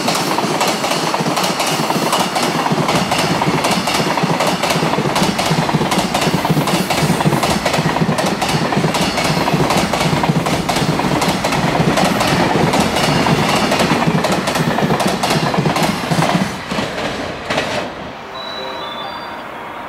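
Long container freight train passing at speed, its wagon wheels clattering over the rail joints. The clatter falls away about sixteen seconds in, and quiet music with short held notes starts near the end.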